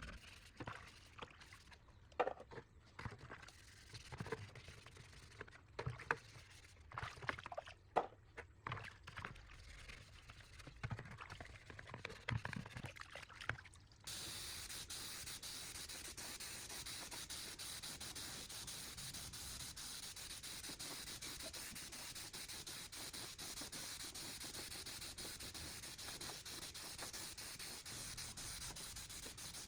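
Scattered light clicks and knocks of parts being handled, then about halfway through an abrupt, steady spraying hiss of paint being sprayed on.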